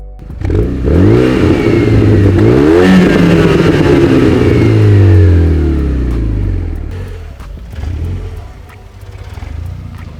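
Renault Megane 225's turbocharged 2.0 litre four-cylinder through a Bastuck catback exhaust, accelerating hard: the engine note climbs, drops at two gear changes within the first three seconds, then falls steadily in pitch and fades away.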